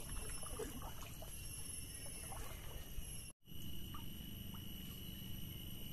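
Mangrove ambience: a steady high insect drone with faint water trickling and small splashes around the boat. The sound cuts out completely for a moment a little over three seconds in.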